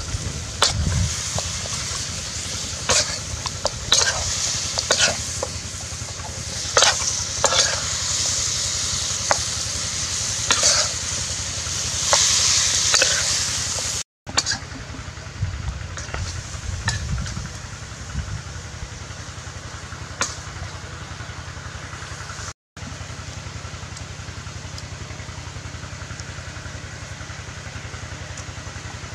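Duck and vegetables sizzling in a metal wok over a wood fire, with a metal spatula scraping and clinking against the pan as they are stirred. The strokes come often in the first half and thin out later, while the sizzling goes on more quietly. The sound cuts out twice, very briefly.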